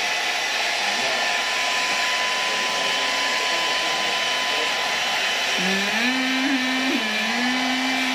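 Handheld electric hair dryer blowing steadily on wet hair, an even rush of air with a thin steady whine. Near the end a voice holds a low, humming note over it for a few seconds.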